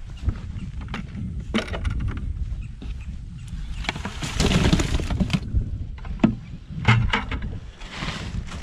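A bucket tipped into a plastic cooler holding freshly caught tilapia: a rushing pour for about a second and a half around the middle, with a shorter rustle near the end. There are knocks from handling the cooler and bucket, and wind rumbles on the microphone.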